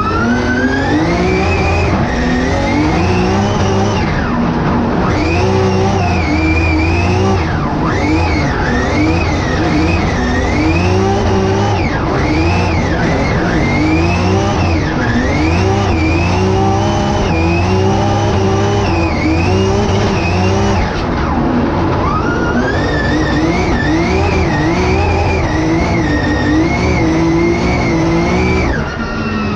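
Drift car engine at high revs heard from inside the cockpit, its pitch swinging up and down about once a second as the throttle is worked through a drift run, with the tyres sliding. The revs climb at the start, dip briefly past the middle, and fall away near the end.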